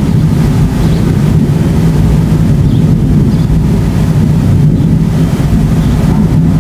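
Continuous rolling thunder from a supercell thunderstorm: a loud, steady low rumble without a break.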